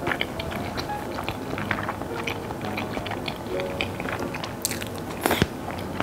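Close-miked chewing of a mouthful of jjapaghetti (black-bean instant noodles), with many small wet mouth clicks and smacks and two louder sharp clicks a little before the end, over light background music.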